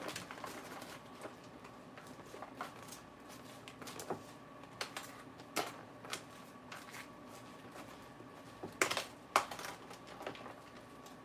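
Faint, scattered clicks and crackles from a lettuce-and-crouton salad being mixed by hand in its container, with two sharper clicks about three-quarters of the way through.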